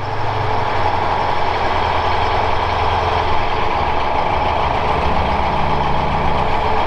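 Engine of an M3A1 Stuart light tank running as the tank moves, with a steady heavy drone whose note changes about five seconds in.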